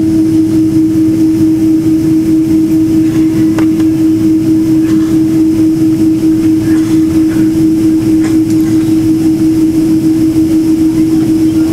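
Airliner cabin noise while taxiing: the engines and airflow make a loud, steady drone with an unchanging low hum, and two faint clicks come through, about a third and about two-thirds of the way in.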